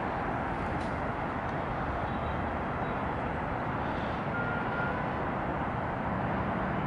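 Steady hum and hiss of distant city traffic heard from high above, with a brief faint high tone about four and a half seconds in.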